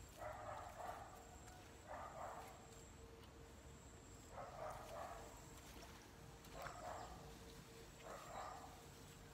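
Faint animal calls, five of them a second or two apart, over a faint steady hum.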